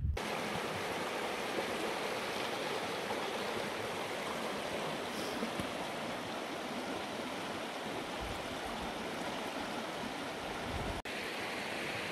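Shallow rocky stream babbling and rushing steadily, with a brief dropout near the end.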